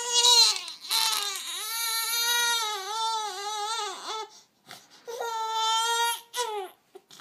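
A 14-week-old baby crying on being woken, in long breaths with a wavering pitch: a short cry, a long one of about three seconds, a pause about four seconds in, then another cry.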